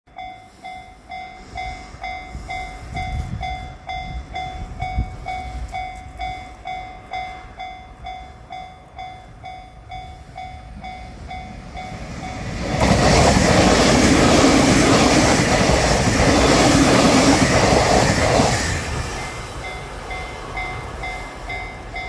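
Japanese level-crossing warning bell ringing in a steady repeating ding, about two strokes a second. About thirteen seconds in, a train passes over the crossing with a loud rushing rumble for some five seconds that drowns the bell. The bell is heard again near the end.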